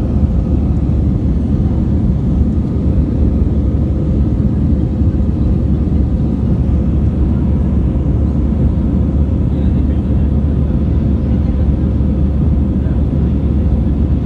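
Airbus A320 cabin noise in the climb after takeoff: a steady, deep rumble of the engines and rushing air, heard inside the cabin at a window seat.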